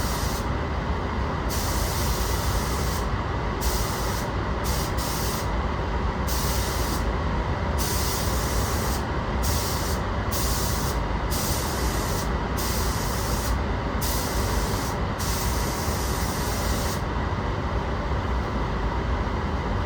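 Paint spray gun hissing in repeated short spells, each about half a second to a second and a half, as the trigger is pulled for each pass of sealer. The spells stop shortly before the end, over a steady rushing of the spray booth's air.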